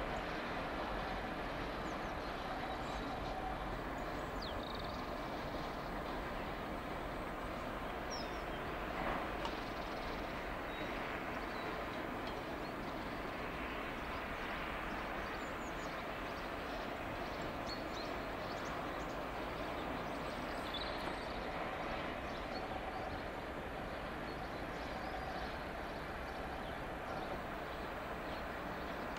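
Distant Class 66 diesel locomotives moving a short train of autoballaster hopper wagons at low speed, a steady mix of engine and wheel noise with no big changes.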